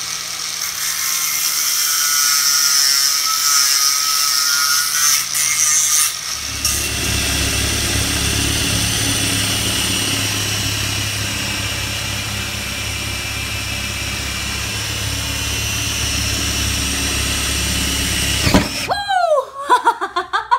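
An angle grinder whines against a walnut board for about six seconds. Then a cordless drill bores through the walnut countertop with a large bit for a hole, running steadily under load until it stops near the end.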